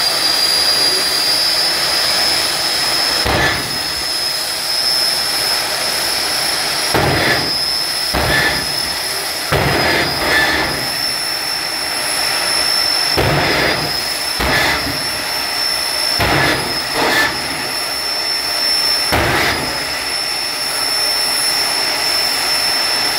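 Turbine jet engines of jet-powered drag cars idling with a steady high-pitched whine. Short surges of rushing noise rise and fall about a dozen times.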